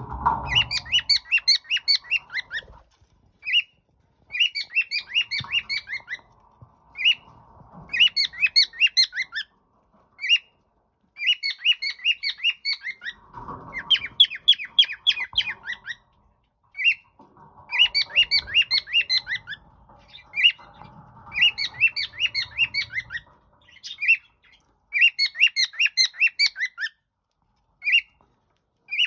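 Cockatiel calling in a repeated phrase: one short note, then a quick run of chirps, again every two to three seconds.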